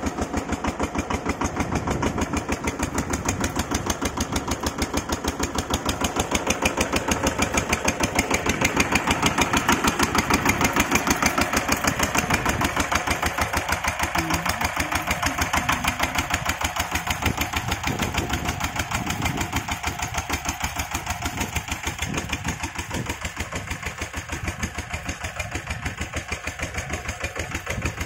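VST Shakti power tiller's single-cylinder diesel engine running steadily while driving two water pumps, a rapid even chugging that grows louder around ten seconds in, then eases off.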